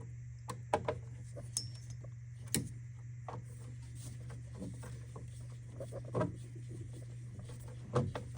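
Scattered small clicks and knocks of a screwdriver and mounting screws being worked while tightening an AIO cooler's pump block down to a hard stop, over a steady low hum.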